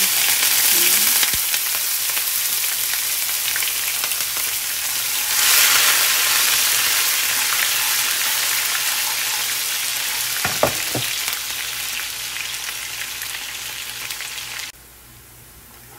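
Minced garlic and shallots sizzling loudly in hot oil and caramelized sugar in a nonstick frying pan, stirred with chopsticks. The sizzle swells about five seconds in, slowly eases, and drops off abruptly near the end, with a couple of chopstick taps on the pan about ten seconds in.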